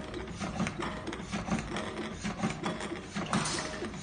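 Automatic sheet-material cutting machine running, with rapid, uneven clicking and clatter.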